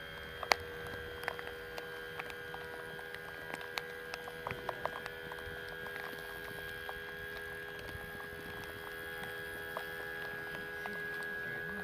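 Electric trolling motor running at a steady speed, a constant whine made of several steady tones. Scattered light clicks and knocks over it, the sharpest about half a second in.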